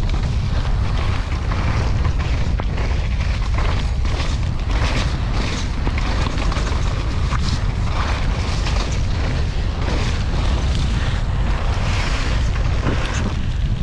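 Wind buffeting the microphone of a helmet- or bike-mounted action camera during a fast downhill mountain bike run, a steady low rumble, with the bike's tyres and frame rattling and knocking over rough, wet ground throughout.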